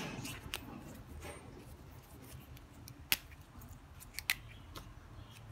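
Plastic caps of dual-tip brush pen markers being pulled off and pressed back on, with the pens knocking together: a handful of sharp, brief clicks, the loudest about three seconds in and again just after four seconds.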